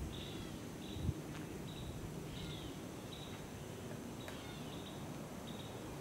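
Woodland ambience: small birds chirping in short, repeated calls over a steady high insect hum, with a single low thump about a second in.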